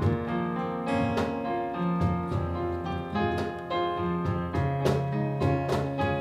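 Piano accompaniment to a musical-theatre love song playing on alone between sung lines, a new chord struck about every second and left to ring.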